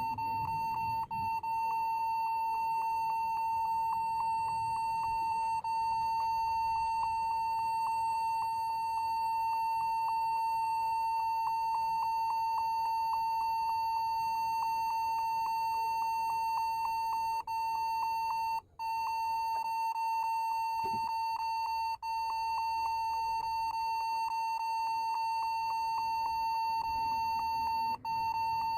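Computer beeping continuously, one steady high-pitched tone broken only by a few brief gaps: the warning beep caused by a keyboard fault.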